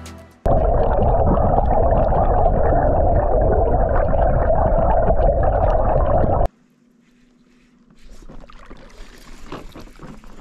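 Muffled, steady rush of water picked up by an underwater camera while a chatterbait is pulled through the water. It cuts off abruptly about six and a half seconds in. Near the end, faint open-air sounds with light clicks follow.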